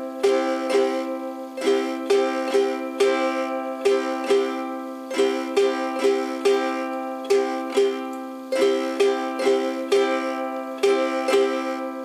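Ukulele strumming a held C chord slowly in the calypso strum pattern (down, down-up, up-down-up), the same group of strokes repeating every few seconds.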